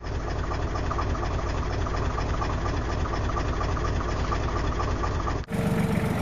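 Tractor engine running steadily with a fast, even rhythm. It cuts off sharply near the end and a louder engine sound with a steady hum takes over.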